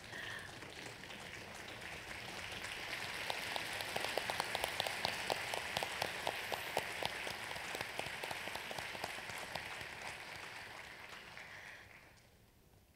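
Audience applauding: it builds over the first few seconds and dies away near the end.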